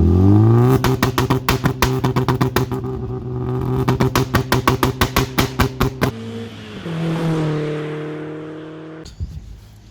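Mazda MX-5 NB 1.6 engine through a loud homemade exhaust, revving up and then held on a limiter with rapid cracks and pops several times a second, typical of a 2-step launch limiter. About six seconds in it cuts off and the revs fall away, followed by a steadier engine tone that fades.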